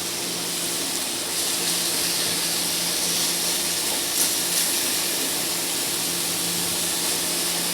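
Peppers sizzling steadily in hot olive oil in a sauté pan over high heat, with a faint low hum underneath.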